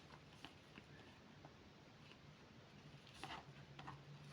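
Near silence: room tone with a faint low hum and a few faint soft clicks, the clearest about three seconds in.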